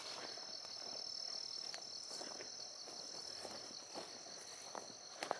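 A steady, high-pitched chorus of insects in the grass, an unbroken shrill trill.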